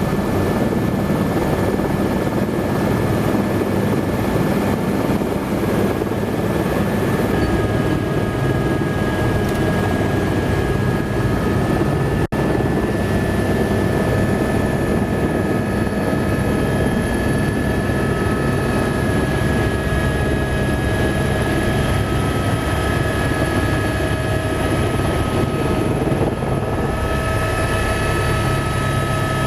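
Tour helicopter's engine and rotor running steadily, heard from inside the cabin: a loud constant drone with steady high whines over it, broken by a momentary dropout about twelve seconds in.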